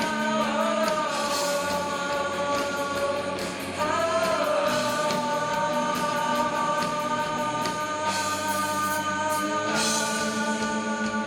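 A Mandarin pop ballad with a sung note held long over a sustained band backing with cymbals.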